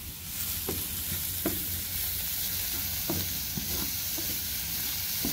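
Cauliflower rice sizzling in oil in a hot nonstick frying pan while a wooden spatula stirs it, with a few short scrapes of the spatula against the pan.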